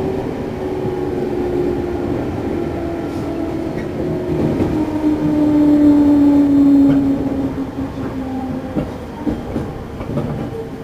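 Onboard running sound of a JR Central 211 series motor car, a car singled out as an abnormal-noise car: the loud traction-motor whine falls steadily in pitch as the train slows, loudest past the middle, with a few rail-joint clicks near the end.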